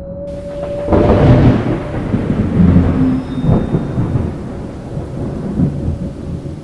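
A thunderclap breaks about a second in and rolls on as a low, crackling rumble that slowly fades, with a hiss of rain beneath it.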